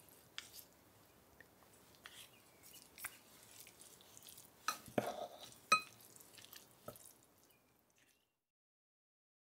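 Chopsticks and a spoon tossing dressed greens in a small glazed bowl: soft wet stirring with scattered light clicks of the utensils against the bowl, a few of them ringing briefly. The sound dies away about eight seconds in.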